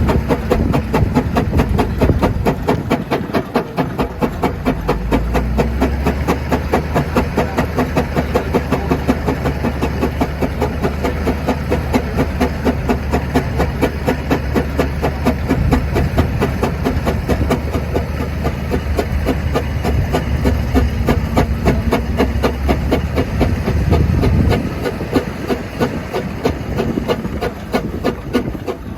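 Fowler steam ploughing engine working, its chimney exhaust giving a rapid, even run of beats. A low drone runs under the beats from a few seconds in and stops a few seconds before the end.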